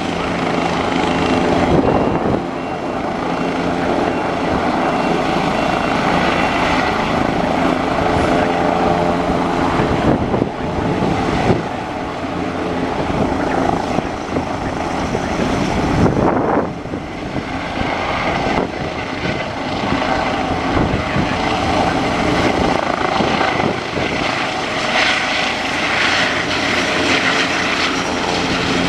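Airbus H135 twin-turbine helicopter at lift-off power, rising into a hover and climbing away. A steady turbine whine sits over the noise of the main rotor and the Fenestron tail rotor.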